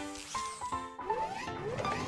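Cartoon background music of short plucked notes, joined about a second in by repeated rising sweeping tones.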